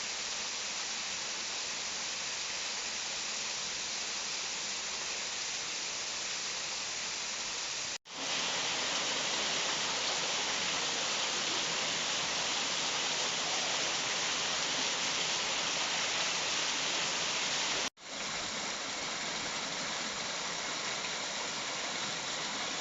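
Waterfall rushing: a steady, even hiss of falling water. It cuts out for an instant twice, about eight and eighteen seconds in, then carries on at much the same level.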